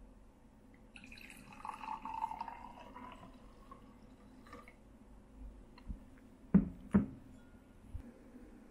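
Sake poured from a glass bottle into a small drinking glass: a trickling, filling sound lasting about two and a half seconds, starting about a second in. A few seconds later come two short, loud sounds about half a second apart.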